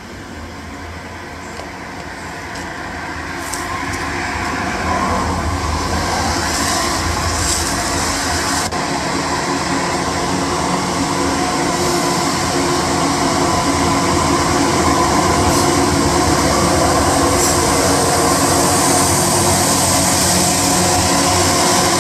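Diesel locomotives approaching on the track, their steady engine drone with several held tones growing louder until they pass close below.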